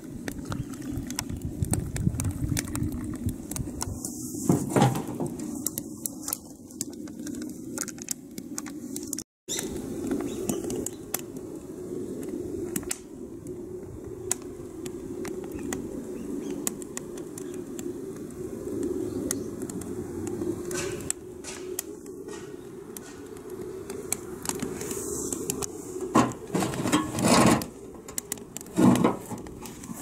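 Wood fire crackling, with scattered sharp pops over a steady low rush. The sound drops out briefly about nine seconds in, and a few louder pops come near the end.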